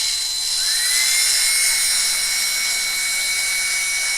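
Small electric drill running with a steady high whine, drilling out the rivets that hold a diecast toy car's base plate. Its pitch rises slightly about half a second in, then holds.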